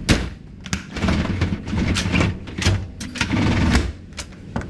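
Roll-up tonneau cover on a Toyota Hilux bed being worked by hand: sharp clicks from its latch and handle, and two stretches of rattling scrape as the slatted cover slides in its rails.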